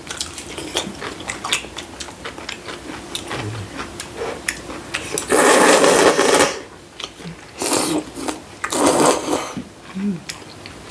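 Kalguksu noodles being slurped loudly from a bowl: one long slurp about halfway through, then a short one and another longer one, between light clicks of wooden chopsticks against bowls.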